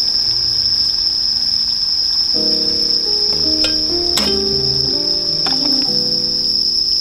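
Crickets chirring in one steady high-pitched trill, over soft background music of held notes. A few light clicks sound about three and a half to five seconds in.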